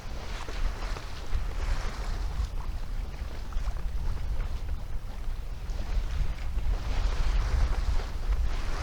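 Wind buffeting the microphone with a heavy low rumble, over the rush and splash of water along a sailboat's hull under sail, swelling louder and fading in surges.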